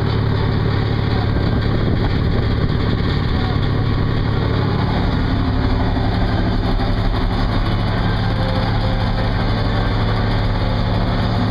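Inboard engine of a gaff-rigged sailing ketch running at a steady pace while the boat motors along, a constant drone with an even hum.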